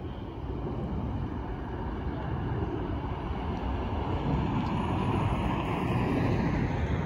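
Jet airliner climbing out after takeoff: a low, steady engine rumble that grows gradually louder.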